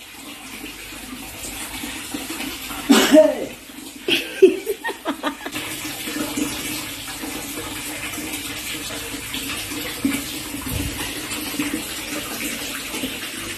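Tap water running and splashing steadily into a large plastic basin while dishes are washed by hand. Short voices break in about three to five seconds in.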